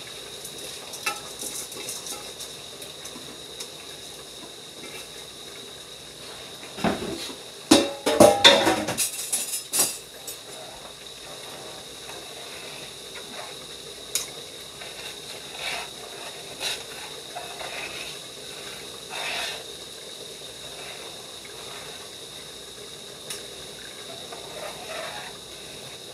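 Metal pot and spoon clattering and scraping as rice is tipped into an aluminium pot of simmering rice and peas and stirred in, over a steady hiss of the pots simmering on the stove. The loudest clatter comes about 7 to 10 seconds in, with a few lighter knocks and scrapes of the spoon later.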